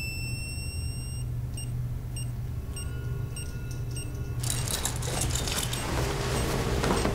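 A high electronic whine from hospital equipment, rising slightly, stops about a second in and gives way to short, spaced electronic beeps. About halfway through, a busy rustling and clattering starts and runs on, all over a steady low hum.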